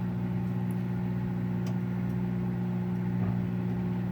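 Microwave oven running with a steady electrical hum, partway through a two-minute heating cycle.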